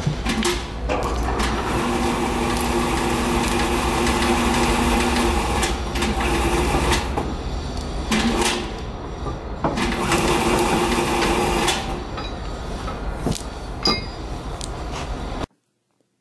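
Steady industrial machinery hum over a low rumble, coming and going in two stretches, with a few sharp metal knocks as the steel tensiometer head is lowered by chain onto its frame and the wire rope. The sound cuts off suddenly near the end.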